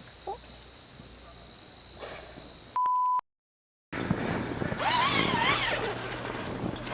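A short, steady electronic beep, cut off by a moment of dead silence, then crows cawing over a loud hiss of outdoor noise.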